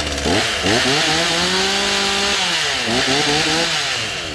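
Komatsu G3500 two-stroke chainsaw revved from idle twice: the first rev climbs quickly and is held for about two seconds, the second is shorter, and each time the engine falls back toward idle.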